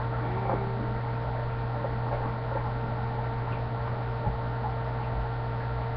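Steady low hum with a faint higher steady tone over it, and a single faint click about four seconds in.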